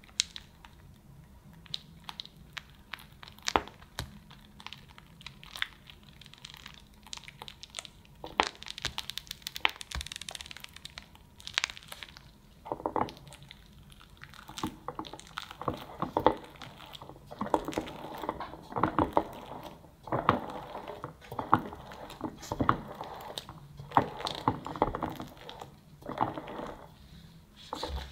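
Plastic piping bag squeezing strawberry mascarpone cream onto a sponge cake layer: soft squishes and crinkles with scattered small clicks. From about halfway, a metal offset spatula spreads and smooths the cream across the sponge, giving a denser run of wet scraping sounds.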